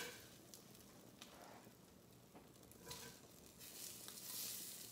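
Faint sizzling of sausage patties frying in a cast-iron skillet, with a few light clicks and scrapes of a spatula against the pan. The sizzle swells louder near the end.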